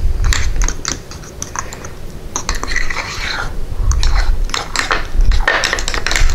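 A metal spoon stirring thick batter in a ceramic ramekin: rapid clinks and scrapes of the spoon against the sides of the bowl, briefly quieter about a second in.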